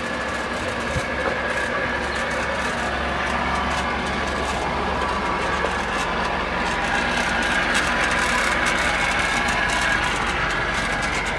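A steady engine hum, like a motor idling, with a faint high whine over it, growing slightly louder toward the end.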